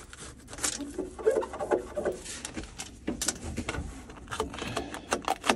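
Crinkling, rustling and light irregular clicks and taps as peel-and-stick sheet metal and foil duct tape are handled and pressed down by hand.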